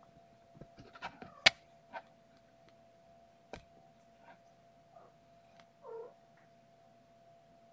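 Young kitten giving one short mew near the end, after a few sharp clicks and taps in the first seconds, over a faint steady hum.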